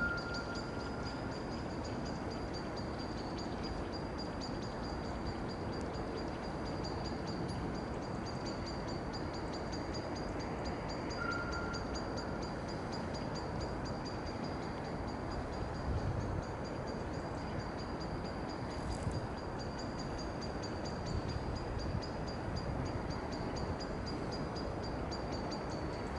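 Steady outdoor ambient noise of a city park at dusk, with a thin high-pitched whine throughout and two short high whistle-like notes, one near the start and one about eleven seconds in. A few soft low bumps come in the second half.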